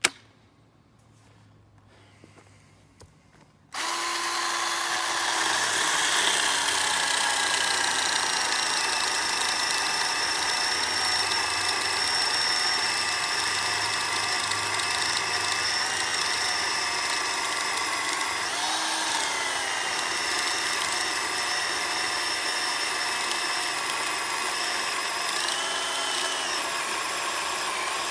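Ryobi 18-volt brushed cordless chainsaw on a 6 amp-hour battery, starting up about four seconds in and running steadily as it cuts wood. Its whine dips briefly in pitch twice, about two-thirds of the way through and near the end.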